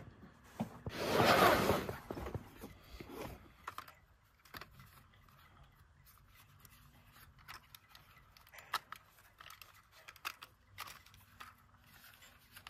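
Small clicks, scrapes and ticks of a folding drone being handled: lifted out of its hard carrying case and its arms snapped open. About a second in, a loud rush of noise lasts about a second.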